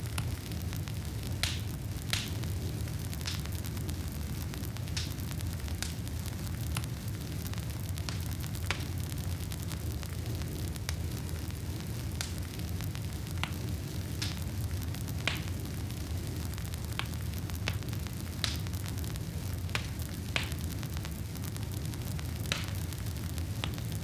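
Wood fire burning in a fireplace: a steady low rumble with irregular sharp crackles and pops, roughly one every second.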